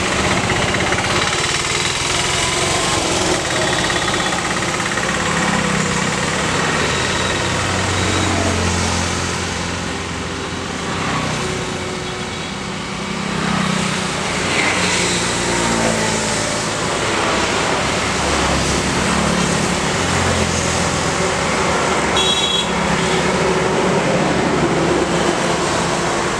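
Steady highway traffic passing close by: the engines of auto-rickshaws, motorcycles, cars and a tanker lorry rise and fade as each goes past. There is a brief lull about halfway through, and a short high beep near the end.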